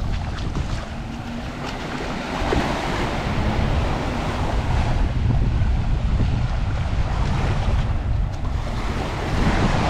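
Surf washing onto a sandy beach, swelling louder a few times, with wind buffeting the microphone.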